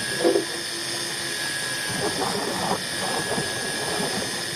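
Steady motor drone with a thin high whine, and brief murmured voices over it.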